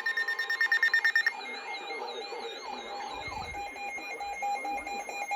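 Electronic alert tones from emergency alert receivers going off for a flash flood warning. A fast run of beeps for about a second gives way to a warbling tone, then to a steady pattern of repeated beeps.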